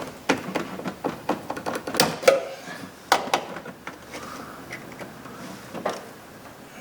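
Irregular clicks and knocks of hand work at a truck door hinge: a coil hinge spring, held compressed by plastic wire ties, being worked into place and the ties cut with a razor knife. The sharpest knocks come about two and three seconds in, and it goes quieter after that.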